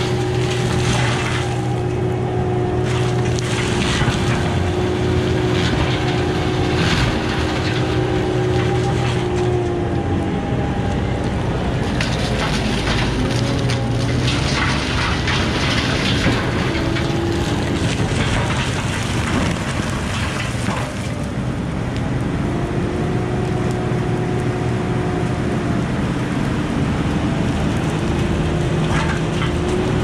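Kubota SVL95 compact track loader's diesel engine running hard to drive a CID 60-inch hydraulic disc mulcher, the spinning disc shredding brush and small trees with a steady hum and a constant spatter of chips and debris. The hum sags in pitch several times as the disc bites into wood, then recovers.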